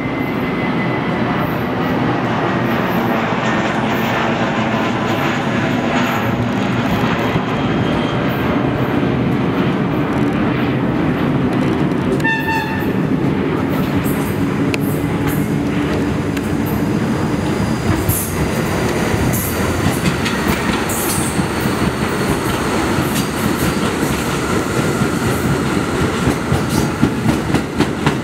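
New York City subway train approaching and pulling into an elevated station, with a steady rumble of steel wheels on the rails. A short horn blast sounds about halfway through, high wheel or brake squeals come a few seconds later, and a rhythmic wheel clatter builds near the end as the cars pass close.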